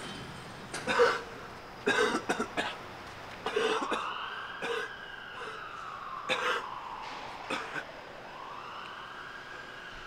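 A man coughing hard in short fits while a siren wails, rising and falling slowly twice from about the middle on.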